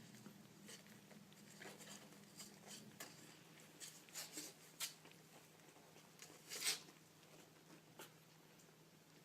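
Faint scattered scratching and rustling ticks, a few louder ones around the middle, over a low steady hum.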